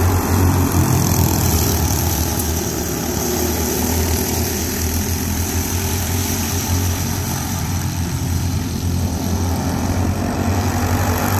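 A pack of racing go-karts with their small engines buzzing steadily as they lap the track, the sound swelling and fading a little as the karts come around.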